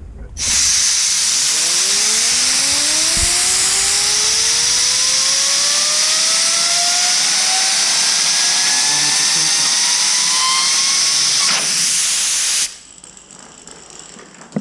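Compressed-air blow gun blasting a loud steady hiss onto a ball bearing and spinning it up. The bearing's whine rises steadily in pitch for about ten seconds as it speeds up. The air cuts off suddenly near the end.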